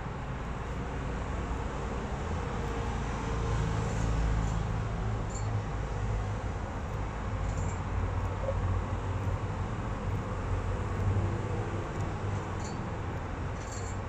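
Steady low background rumble, with a few faint, short high chirps from budgerigars scattered through it.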